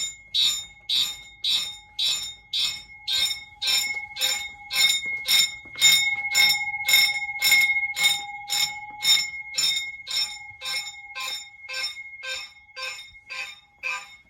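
Hobby fire alarm system sounding in march time. Its horns and bell pulse evenly about twice a second over a steady tone that holds throughout. The march-time pulsing comes from a relay timer module switching the signal circuit.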